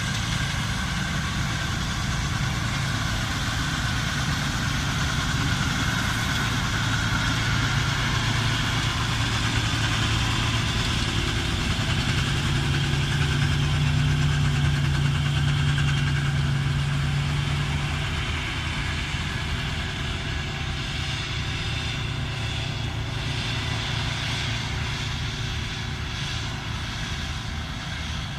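Laverda M152 combine harvester running steadily while cutting wheat, a deep engine hum with machinery clatter and rustle above it. It grows louder toward the middle, with the engine note rising slightly, then eases off.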